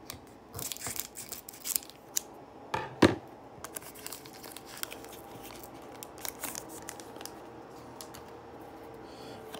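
Scissors snipping open a foil trading-card booster pack, the wrapper crinkling and tearing, with a sharp click about three seconds in. After that come quieter rustles and small clicks as the cards are slid out of the pack.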